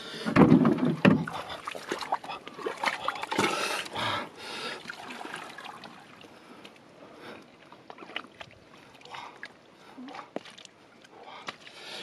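Wet splashing and splattering in mud and shallow water, loudest in a burst about half a second in, then scattered faint wet slaps and clicks.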